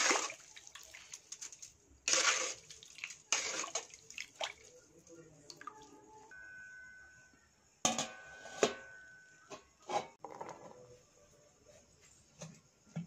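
Water sloshing and splashing in a metal cooking pot as vegetables in broth are stirred with a ladle, in several short loud bursts.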